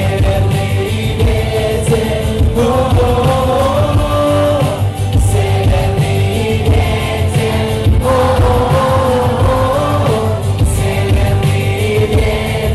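Pop-rock song playing at a steady loudness, with a sung melody held in long notes over full band backing.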